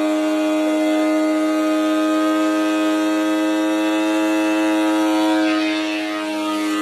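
Ridgid 13-inch thickness planer running with a steady, high-pitched motor whine. Its pitch and level sag slightly near the end.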